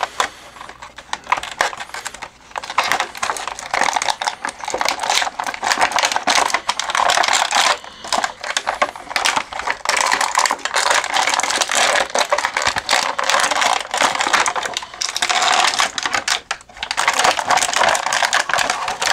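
Clear plastic blister tray crinkling and crackling as it is flexed and handled to work the action figure free, with many small clicks and a short pause near the end.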